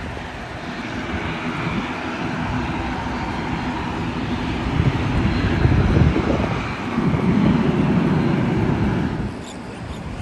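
Airbus A321 jet engines and airflow during a landing, a broad steady rush. It grows loudest about halfway through, stays loud for a few seconds, then drops off sharply near the end.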